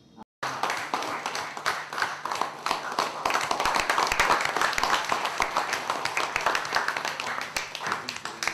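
Audience applauding: many hands clapping, coming in abruptly, at its fullest around the middle and thinning out near the end.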